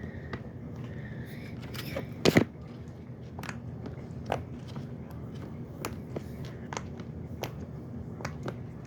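Irregular small clicks and pops from a fidget toy being pressed and handled, with a louder double knock a little over two seconds in.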